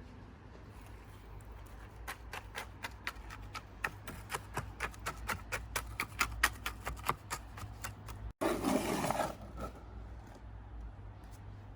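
Small trowel working wet cement: a quick run of short scrapes and taps, about three or four a second, then one rougher scrape lasting about a second.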